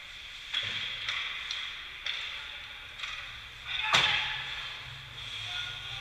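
Ice hockey play echoing in an indoor rink: skates scraping the ice and a series of sharp knocks of sticks and puck, roughly one a second, the loudest about four seconds in, just after a short rising scrape.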